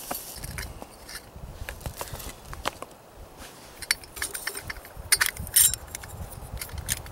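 Coffee grounds poured from a bag into a metal percolator basket and levelled by hand, small rustles and clicks throughout, then a sharper metal clatter a little after five seconds in as the perforated spreader lid is set onto the basket.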